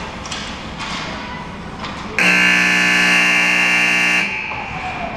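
Ice rink's scoreboard buzzer sounding once, a steady, harsh buzz of about two seconds that starts and stops abruptly.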